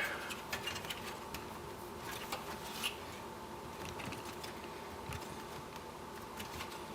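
Faint scattered clicks and taps of hands working the plastic retaining tabs of a graphics card inside a desktop computer case, over a steady faint hum.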